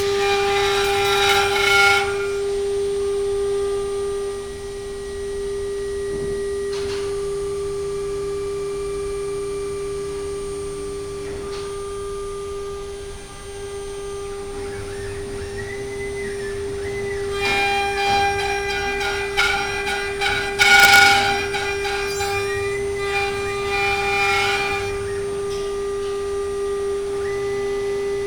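CNC wood router's spindle running with a steady whine, the bit cutting wood in noisy stretches near the start and again from about two-thirds of the way in.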